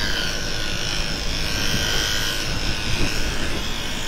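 Electric dog grooming clippers, just fitted with a 5F blade, running with a steady buzz.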